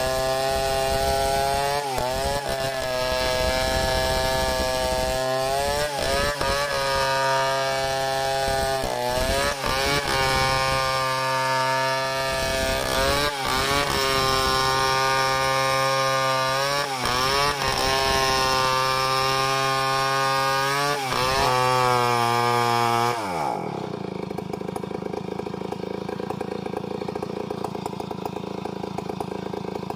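Chainsaw at full throttle ripping lengthwise through a mahogany log in freehand milling. Its engine note dips briefly and recovers every few seconds as the chain loads up in the cut. About two-thirds of the way in, the revs fall away and the saw runs on lower and quieter.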